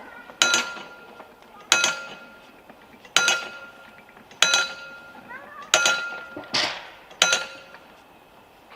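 A piece of metal struck again and again, seven times, roughly one strike every second and a bit, each hit ringing on briefly with the same clear tone like a small bell.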